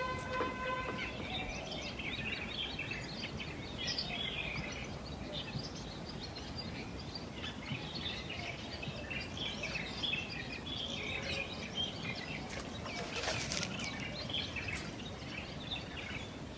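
Small birds chirping over a steady outdoor background hiss, with a short burst of noise about thirteen seconds in.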